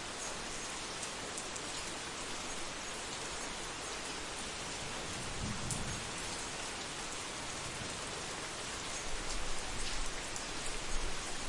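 Thunderstorm: steady rain falling, with low thunder rumbling briefly about halfway through and rolling again, louder, over the last few seconds.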